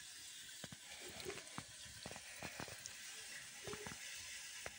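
Faint sizzling and bubbling from a pot of curry heating on a small gas burner fitted to an LPG cylinder, with scattered small clicks and ticks.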